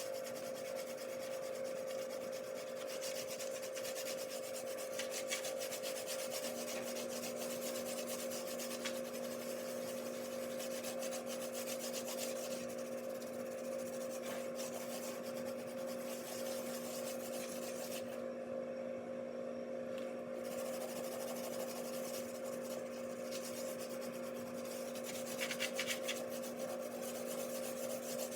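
A dishwasher tablet rubbed back and forth over oven door glass, a continuous scratchy scrubbing, with a steady hum underneath. The scrubbing pauses for a couple of seconds about two-thirds of the way through.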